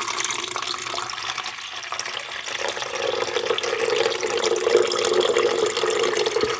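Water running from a tap into a coffee pot, a steady rush that grows a little louder about halfway through as the pot fills.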